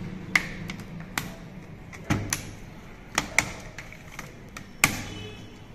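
Laptop keyboard being pried out of its case with a screwdriver: about seven sharp plastic clicks and snaps at irregular intervals as its retaining latches are worked loose.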